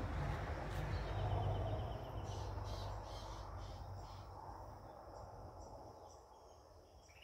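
Outdoor ambience: a low rumble on the microphone that fades away, with faint, repeated high insect chirps above it.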